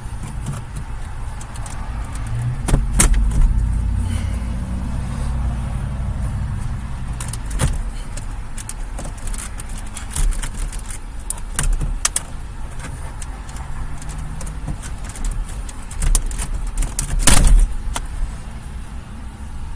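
Scattered clicks, taps and knocks of car dashboard parts being handled and worked loose, with a louder knock near the end. A low rumble runs underneath, strongest from about three to six seconds in.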